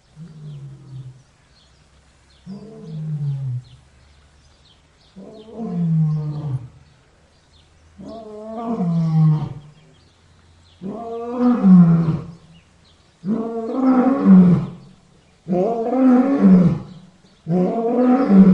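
A lion roaring in a bout of about eight drawn-out roars, each falling in pitch, coming every two to three seconds and growing louder and fuller as the bout builds.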